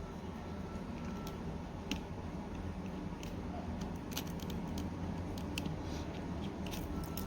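Scattered light clicks and ticks of small repair tools working on an opened iPhone's parts, over a steady low hum.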